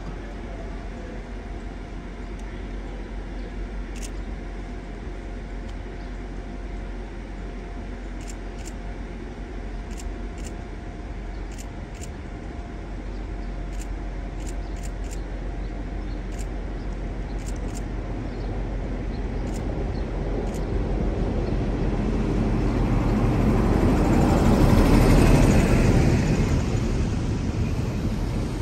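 Class 43 HST power car leading the Midland Pullman in: a diesel rumble with rail noise that builds steadily as the train approaches. It is loudest about three-quarters of the way through as the power car passes, then eases as the coaches roll by. A few brief high chirps come in the first two-thirds.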